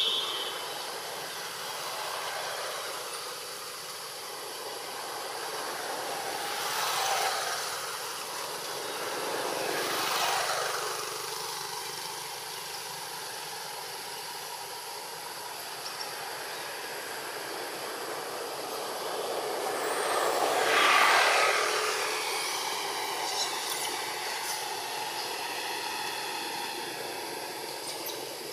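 Outdoor ambience of a steady hiss with a few vehicles passing by, each swelling and fading over a couple of seconds; the loudest passes about two-thirds of the way through.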